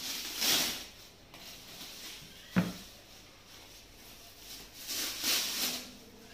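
Clear plastic wrap rustling and crackling as it is pulled off a cardboard box. It comes in two bursts, one just after the start and one near the end, with a single sharp knock between them.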